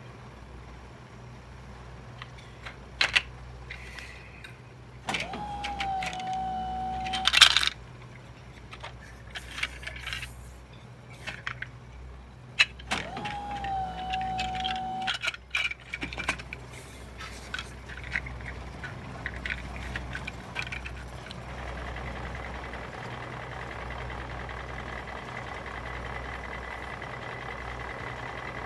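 Plastic Lego Duplo bricks clicking and clacking as they are handled and scooped into a toy dump truck, in scattered sharp knocks. Twice a held tone of about two seconds sounds among the clicks.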